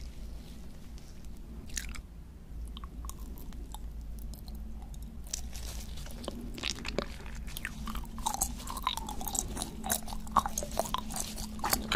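A person eating stretchy pink candy. It is twisted on wooden sticks with a few soft clicks, then from about six seconds in it is bitten and chewed, with dense, crackly mouth clicks.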